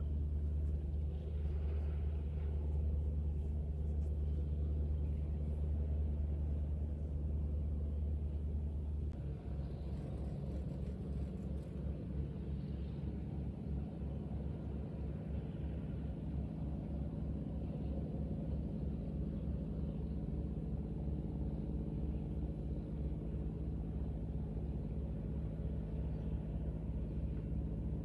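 Diesel engine of a squid-fishing boat running under way, a steady low drone; its low tone shifts slightly about nine seconds in.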